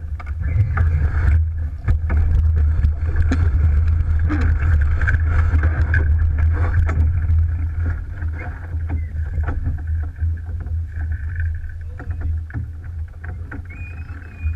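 Alberg 30 sailboat under sail in chop: wind rumbling on the microphone over water rushing along the hull, with scattered clicks and splashes. Loudest through the first half, easing off after about eight seconds.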